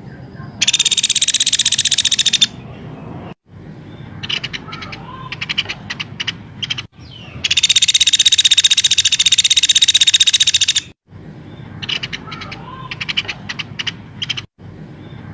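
Recorded songbird song used as a tutor track: two long, rapid buzzing trills of about two and three seconds, with quick bursts of sharp chipping notes between them. The recording cuts off abruptly at the splices between the looped segments.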